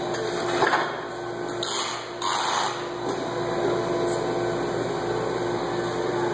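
A roll of plastic film slides off a roller-bed lift cart onto an arbor shaft: a knock about a second in, then two short scrapes, over a steady machine hum.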